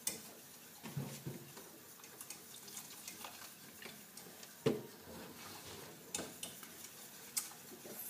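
A utensil stirring thick béchamel sauce in a metal saucepan: soft scraping with scattered light knocks against the pan, one louder knock a little past the middle.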